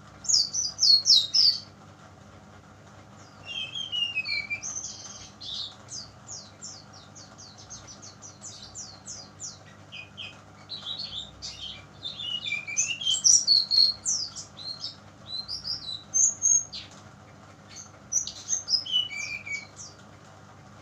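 Young speckled brown-chested jungle flycatcher singing in bursts of rapid, high chirping phrases, some notes sliding downward, with short pauses between phrases.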